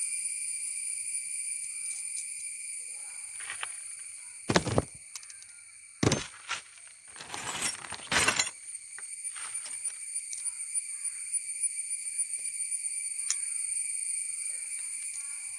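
Small metal parts clinking and knocking as a nut is fitted onto a bolt of a mixer grinder's motor assembly. A few sharp clatters come about halfway through, over a steady high-pitched whine.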